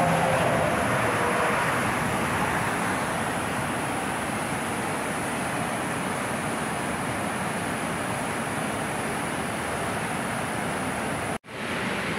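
Steady road and wind noise of a moving car, heard from inside the car. It cuts out abruptly near the end, giving way to the rush of a river running high over rapids.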